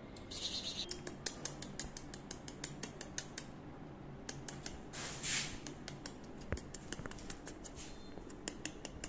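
Dog's claws clicking on a hard tile floor as it walks, a rapid run of sharp ticks about three to four a second. Two short bursts of hiss break in, one right at the start and a stronger one about five seconds in.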